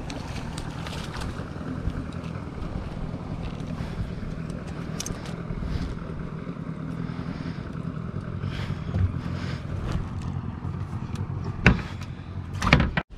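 Steady low rumble of wind buffeting the microphone out on open water, with two sharp knocks near the end and an abrupt brief drop-out just before the end.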